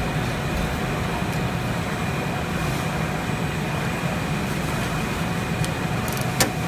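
Steady hum and whir of printing machinery running, with a faint high whine held throughout. A single sharp click near the end.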